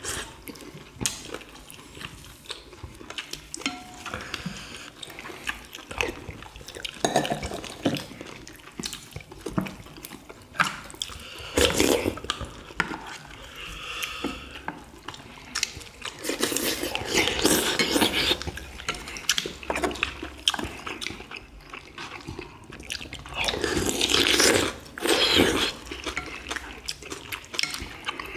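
People eating boiled chicken and broth: spoons and chopsticks clicking against ceramic bowls, with chewing and slurping in several louder stretches.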